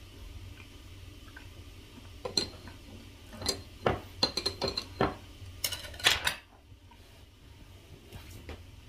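Tableware clinking during a meal: a quick run of about a dozen light clicks and clinks, some with a short bright ring, starting about two seconds in and stopping a little past the middle.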